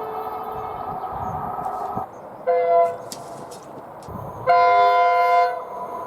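Train horn: a steady horn note cuts off abruptly about two seconds in, then a horn gives a short toot and, about two seconds later, a longer blast with the same pitches.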